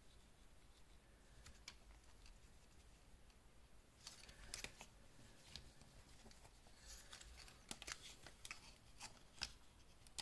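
Near silence at first, then from about four seconds in a run of faint rustles and soft, scattered clicks as a microfiber cloth is rubbed over a wristwatch and the watch is handled.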